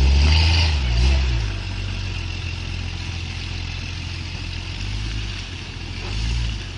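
A Jeep Cherokee's engine revs hard at close range, then runs more steadily, with another swell near the end. It is straining to pull a truck stuck in mud on a tow chain.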